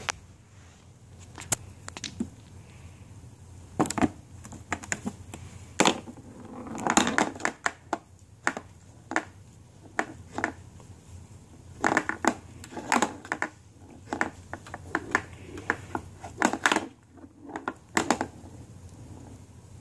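Mini pool table balls knocked about by a kitten, clicking against each other and the rails in irregular runs of sharp clicks, thickest near the middle and toward the end.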